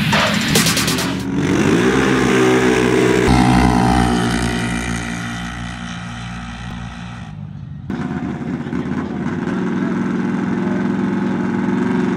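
ATV engines accelerating hard in a drag race launch: the pitch rises, then holds and fades as they pull away. After a sudden cut about eight seconds in, ATV engines run steadily.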